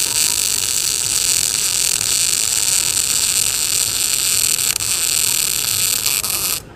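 MIG welder arc running a bead on thin-walled square steel tubing at about 135 A: a steady, loud sizzling hiss that cuts out briefly near the end.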